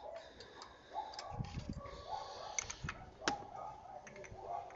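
Hand-tool work on a car: scattered sharp clicks and light metallic clinks of a wrench on metal, with a few dull knocks. The loudest is a single sharp click a little past three seconds in.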